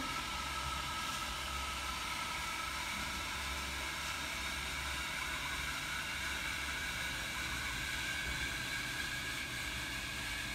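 Steady background rumble and hiss with a faint hum that slowly shifts in pitch.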